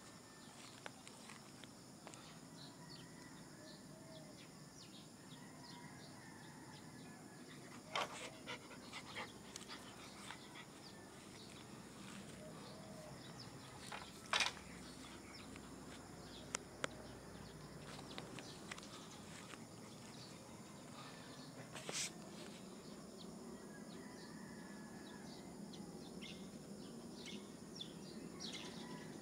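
A dog panting, with a few sharp clicks scattered through, the loudest about fourteen seconds in.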